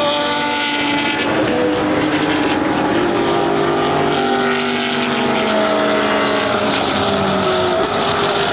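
Several GT3 race car engines running hard together, their pitches overlapping and slowly rising and falling.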